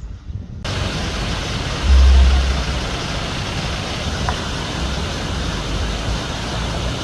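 Waterfall rushing: a loud, steady roar of falling water that cuts in abruptly about half a second in, with a brief low rumble about two seconds in.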